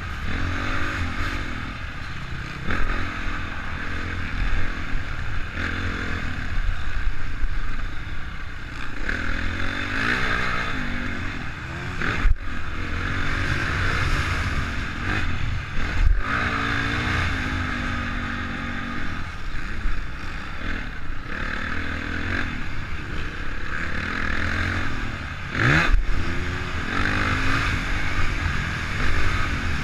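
Honda CRF450 motocross bike's single-cylinder four-stroke engine, heard from on board, revving up and backing off again and again as it is ridden hard around a dirt track. Three sharp knocks are spread through.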